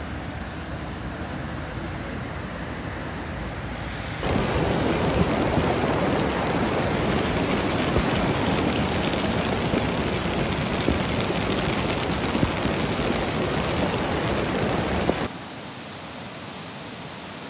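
Muddy floodwater rushing in a torrent, a steady noise that gets much louder about four seconds in and falls back again near the end.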